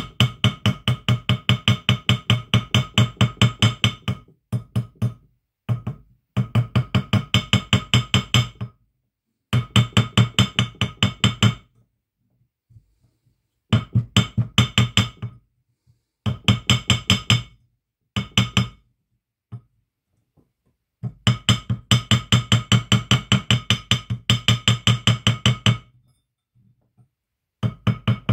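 Textolite mallet tapping a silver ring on a steel conical ring mandrel in quick runs of about six blows a second, each run lasting one to five seconds with short pauses between. Every blow rings with a metallic tone. The blows are truing the ring's broken, bent band back into a round shape.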